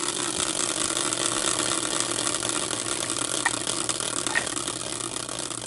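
Homemade caster-wheel spinner turning freely after a hand spin, its pointer giving a fast, continuous rattle of ticks against the wheel's edge that slowly gets quieter.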